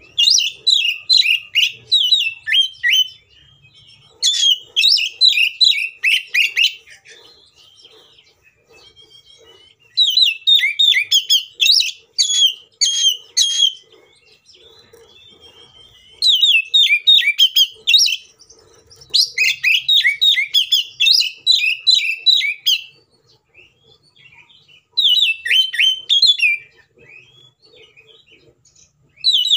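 Oriental magpie-robin (kacer) singing its loud, aggressive 'fighting' song: rapid runs of sharp, high repeated notes. The song comes in about six bursts of a few seconds each, with short pauses between them.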